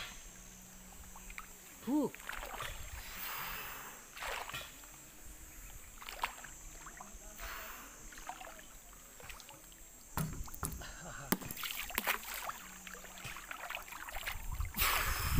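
Swimming-pool water sloshing and lapping as a person wades and moves through it, with a louder splash near the end.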